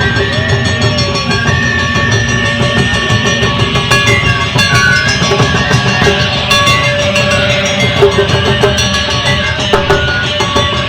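Live band music on Japanese drums including flat hira-daiko taiko: dense, loud drum strokes throughout, with a held melody line over them.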